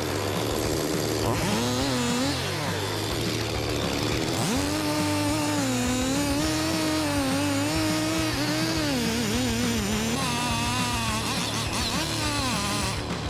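Chainsaw running hard while cutting wood, its engine pitch wavering up and down as it works.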